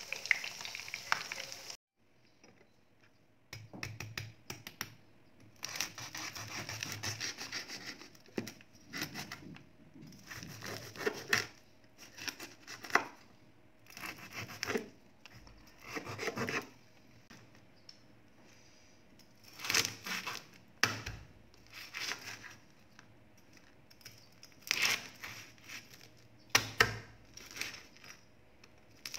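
A large knife cutting crisp fried pork belly on a wooden cutting board: bouts of crackling crunches as the blade breaks through the crisp skin, with knocks of the blade on the wood. A brief sizzle of pork belly frying in oil at the very start, then a short gap.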